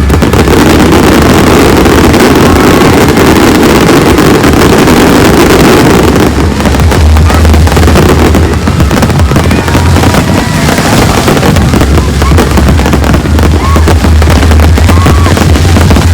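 A fireworks display: a dense, loud clatter of bursts mixed with music playing over loudspeakers and crowd voices.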